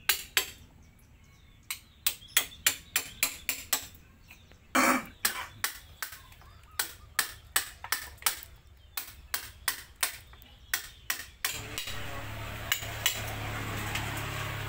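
Round wooden mallet tapping a steel chisel into teak wood: sharp, short knocks about two to three a second, in irregular runs with brief pauses. Near the end a steady low drone comes in under the taps.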